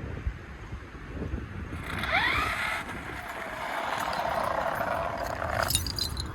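1/7-scale 8S electric RC car accelerating: a whine from the motor and drivetrain rises in pitch about two seconds in, then a steady rushing run at speed that cuts off suddenly near the end.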